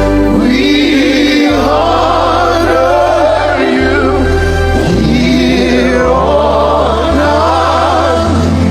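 Live gospel worship music: singers holding long, wavering sung lines over sustained bass and keyboard chords, the chord changing every second or so.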